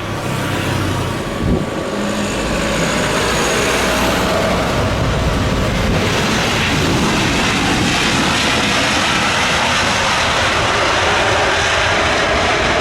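Airbus A320-232's twin IAE V2500 jet engines running loud as the airliner lands. The noise builds about a second in and then holds steady, with a brief low thump about a second and a half in.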